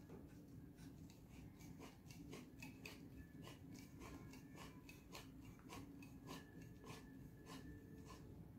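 Handheld tube cutter being turned around a copper pipe: faint, irregular clicks, about two or three a second, with light squeaks as the cutting wheel scores the pipe.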